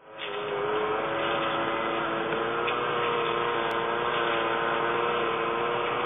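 Steady mechanical hum made of several held tones over a noisy background. The lower tones rise slightly in pitch during the first second and then hold.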